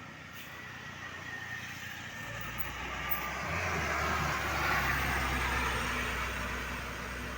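A heavy road vehicle approaching and passing on a climb. Its engine hum and tyre noise grow louder to a peak about five seconds in, then ease off.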